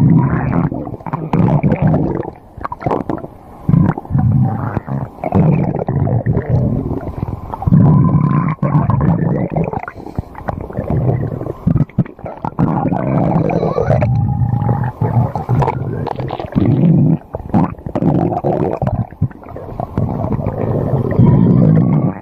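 Stomach growling loudly: long gurgling rumbles with squeaky rising and falling tones, in bouts broken by brief pauses.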